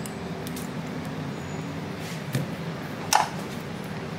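Thin metal opening blade worked between an iPhone 14 Pro Max's display and its frame to pry them apart: small scrapes and ticks, with one sharp click about three seconds in, over a steady low hum.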